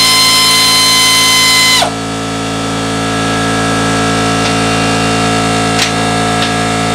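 Background music: a loud, sustained droning chord. A high note in it slides down and drops away about two seconds in, and the chord holds on after that.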